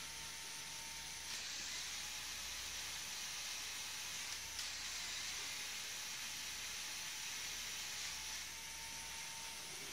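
Faint, steady airy hiss of a LEGO Technic helicopter model's main rotor blades spinning. It starts about a second in and eases near the end, with a couple of small clicks.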